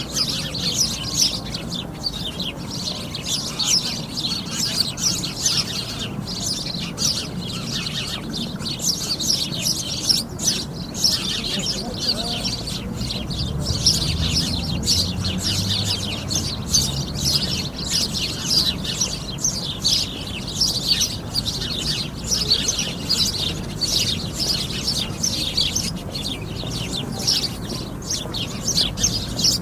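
A flock of sparrows chirping, many short overlapping chirps going on without a break.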